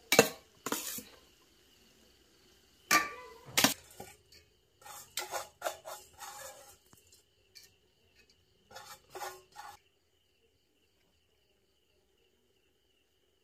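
Metal utensils clanking and scraping against an aluminium cooking pot while the biryani is layered. A few sharp knocks in the first four seconds, then bursts of clinking and scraping, stopping about ten seconds in.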